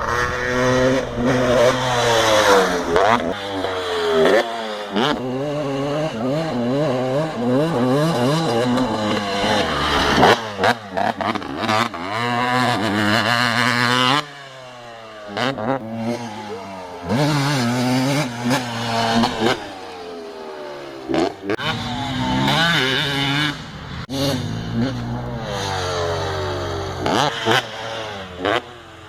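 KTM 250SX two-stroke motocross engine being ridden hard, its pitch climbing as it revs up and falling back when the throttle is closed, over and over. About halfway through the throttle is shut for a couple of seconds and the engine drops to a low burble before pulling again.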